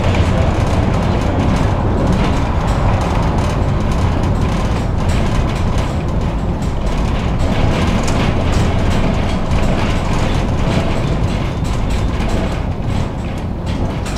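Tram running along the track: a steady rumble with frequent short clicks and knocks of the wheels on the rails.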